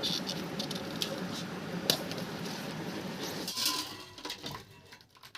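Clatter of pots and utensils, with a sharp clink about two seconds in. It thins out and dies away over the last second or so.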